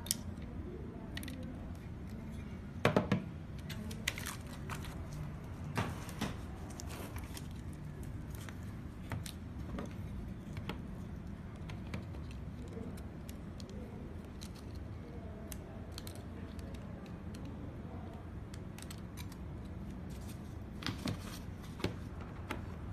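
Scattered small clicks and taps as hands handle the ribbon-cable connectors and metal-framed circuit board of a car touch-screen unit, with a louder cluster of knocks about three seconds in and again near the end, over a steady low hum.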